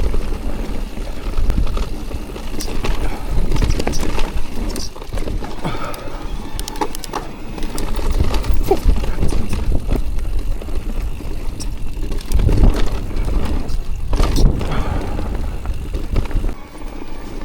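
Mountain bike riding downhill on a dirt trail: a steady low rumble of wind and tyres, broken by frequent sharp knocks and rattles as the bike goes over bumps.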